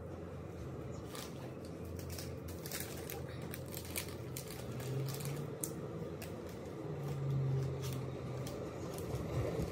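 Plastic poly mailer bag crinkling as it is handled and cut with scissors, with scattered short clicks and snips.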